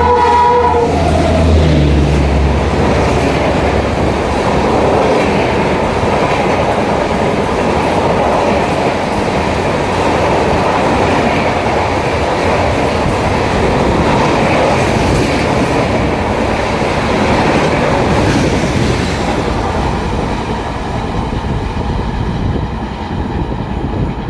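Express passenger train passing close by. A two-tone horn blast ends about a second in and the locomotive's low hum fades away. The coaches then rattle past with clickety-clack of wheels over rail joints, easing slightly near the end.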